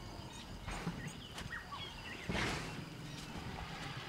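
Young bull African elephants jostling at close quarters: one short rushing, breathy sound a little past the middle, over faint bird chirps and a steady insect hum.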